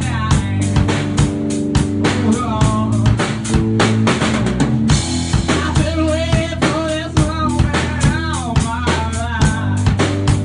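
Acoustic drum kit played in a steady groove, kick, snare and cymbals, over held bass guitar notes, with a cymbal crash about five seconds in. A wavering higher melody line runs above.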